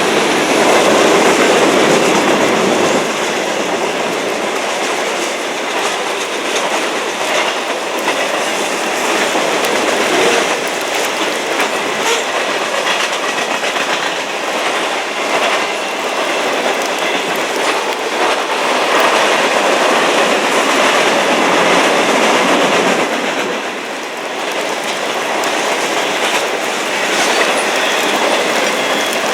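Freight train cars rolling steadily past, steel wheels clicking over the rail joints with a faint wheel squeal.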